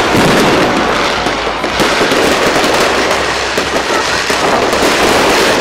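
Fireworks display: aerial shells bursting overhead in a dense, unbroken barrage of loud bangs and rapid crackling.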